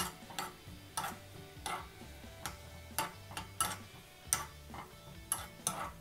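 Metal spoon clinking and scraping against a small pan while stirring cashews roasting in ghee, about two uneven clicks a second.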